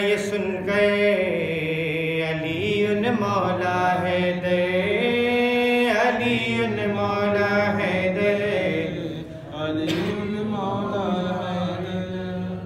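A man's solo voice chanting a marsiya, a mourning elegy, in long melodic held lines that glide in pitch without pause.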